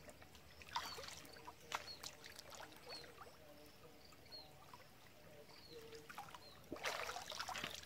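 Faint water sloshing and small splashes as a swimmer moves face-down through a shallow creek, with a louder burst of splashing near the end.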